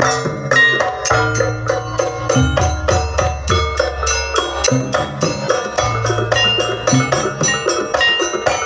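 Gamelan-style jaranan dance music: a quick, even run of pitched metal mallet strikes over deep, sustained gong tones.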